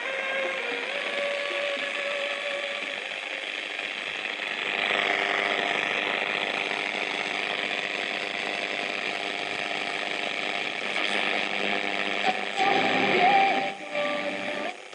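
Philips Philettina two-band transistor radio giving out static hiss between stations as it is tuned, with faint whistling tones near the start and a warbling whistle near the end.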